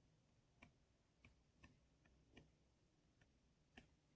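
Faint, irregular clicks of a stylus tapping a tablet screen while handwriting, about eight in four seconds.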